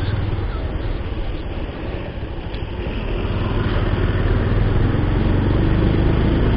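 Bajaj Pulsar 150's single-cylinder engine running as the motorcycle rides along, with wind and road noise. The engine eases off around two seconds in, then builds again.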